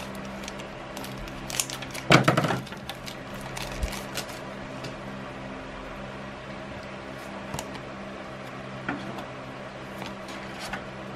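A foil trading-card booster pack torn open with a brief loud crinkle about two seconds in, then faint rustling and light ticks as the cards are handled, over a low steady hum.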